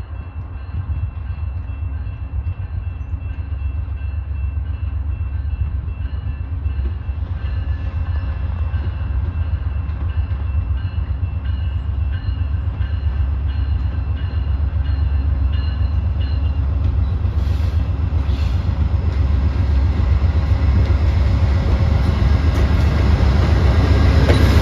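VIA Rail GE P42DC diesel locomotive hauling a passenger train toward and past the listener, its low rumble growing steadily louder as it closes in. A grade-crossing bell rings in a steady rhythm and stops about two-thirds of the way through.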